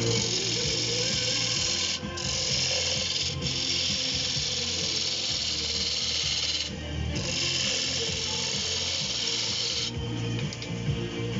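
Oak turning on a wood lathe with a turning tool cutting into it: a rough, steady scraping that breaks off briefly a few times as the tool comes off the wood, over the low steady run of the lathe.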